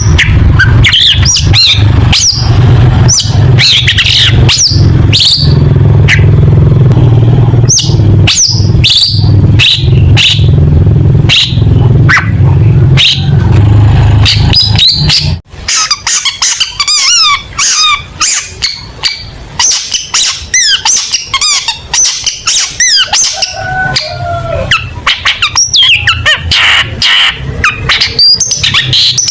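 Long-tailed shrike (cendet) singing a rapid, varied string of short chirps, squawks and sweeping notes. A loud, steady low rumble runs under the first half and cuts off suddenly about halfway through.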